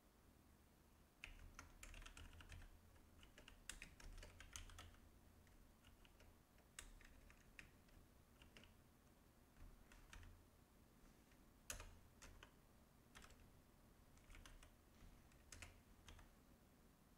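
Faint computer keyboard typing: keystrokes in short irregular bursts with pauses between, busiest in the first few seconds and sparser after.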